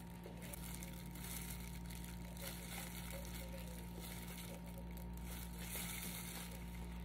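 Disposable plastic gloves crinkling softly as hands pull apart a slice of banana bread, over a steady low hum.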